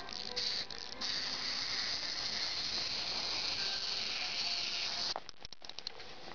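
Plastic gear mechanism of a Kotobukiya gatling gun model, turned by a knob on its shaft, giving a fast, steady ratcheting rasp that stops abruptly about five seconds in. A few light plastic clicks follow as the parts are handled.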